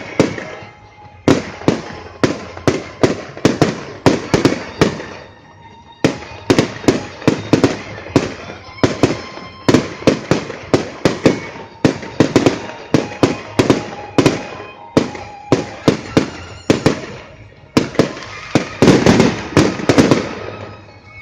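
Fireworks display: a rapid series of loud bangs, several a second, in volleys with brief lulls between them.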